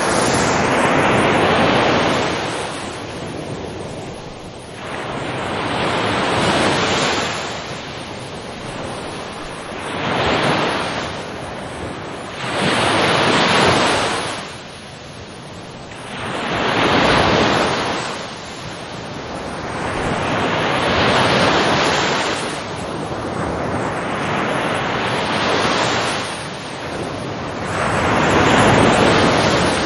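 Ocean waves breaking on a shore in a steady rhythm, each one a rushing surge that rises and falls away, roughly one every three to four seconds.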